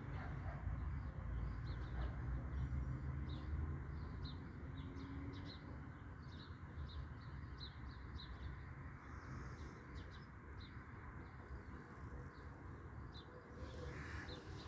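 A small bird chirping over and over: short high chirps, about one or two a second, over a low background rumble that eases after the first few seconds.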